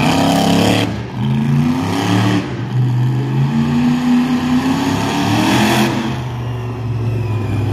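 Monster truck engine revving as the truck drives across a dirt arena, starting with a loud burst in the first second. The pitch then rises over a couple of seconds and falls back about six seconds in.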